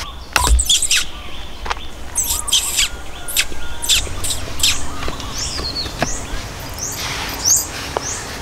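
Sharp wooden knocks and chops as small poles are cut and tapped with a machete and hatchet, a low thump about half a second in. Birds chirp in quick swooping calls through the second half.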